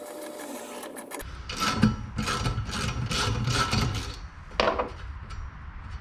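Hand tap cutting 1/8-inch pipe threads into a metal steam-port fitting held in a bench vise: a run of short rasping scrapes, about two to three a second, as the tap wrench is worked round. Before the scrapes, a steady hiss with a faint hum cuts off abruptly about a second in.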